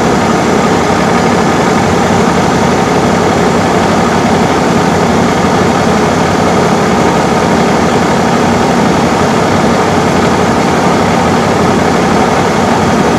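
Heavy vehicle engine idling close by: a loud, steady, unchanging drone with a constant hum.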